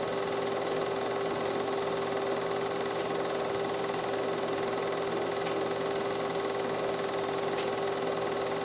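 Film projector running with a steady mechanical whir and a constant tone, unchanging throughout.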